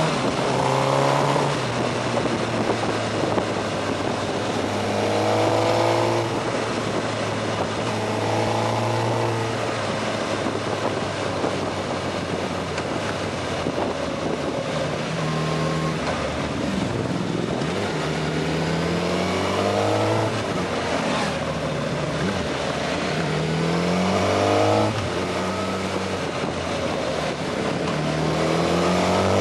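Suzuki GSX-R 1000 inline-four motorcycle engine, heard from the rider's seat, revving up and easing off several times as it accelerates and slows. A steady rush of wind noise runs underneath.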